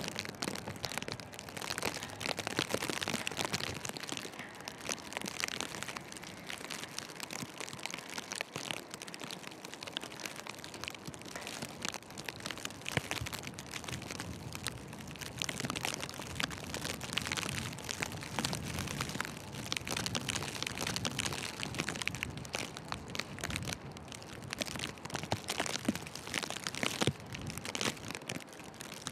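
Footsteps crunching through deep fresh snow, a dense crackle of small crunches over a steady hiss of wind and snowfall.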